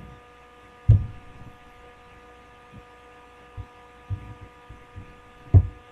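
Steady electrical hum with several faint level tones under the microphone's hiss, broken by a few short, dull low thumps, the loudest about a second in and more around four seconds and near the end.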